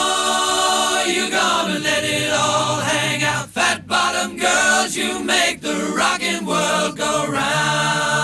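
Background music: several voices singing together in chorus.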